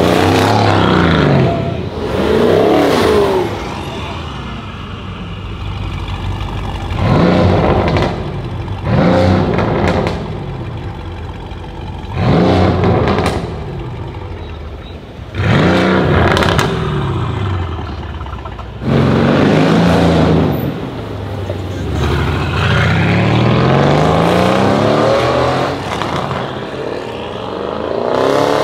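Mercedes-AMG twin-turbo V8 performance cars revving and accelerating hard on a street: a string of loud bursts a second or two long, each rising in pitch, then a longer rising pull near the end.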